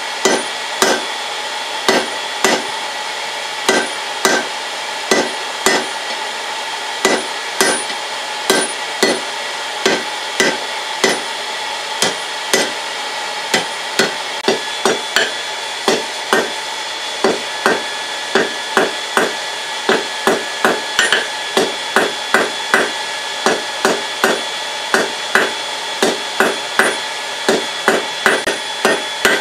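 Hand hammer blows on red-hot steel at an anvil, first cutting a bar over a hardy (hot-cut), later forging on the anvil face, the anvil ringing after each strike. The blows come about one a second at first and quicken to two or three a second in the second half. A steady hiss runs underneath.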